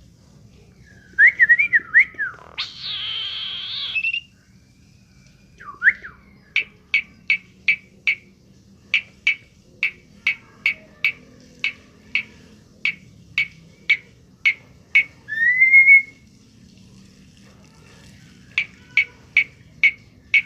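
Talking pet bird whistling: a quick warbled call and a harsh rasp, then a long run of short, sharp, evenly spaced whistle notes, about two a second, broken once by a rising whistle.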